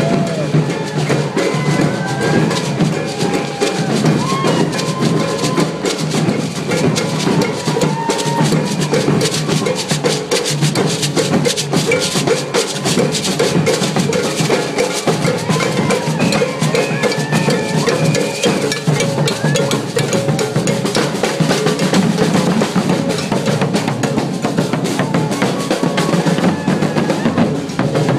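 A street drum group playing a fast, dense rhythm on many hand-held and shoulder-slung drums, with deep bass drums under sharper drum hits.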